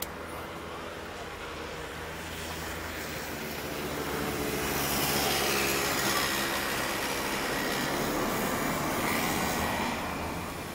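A passing engine: a steady rumble that grows louder about four seconds in, holds for several seconds, and fades away near the end.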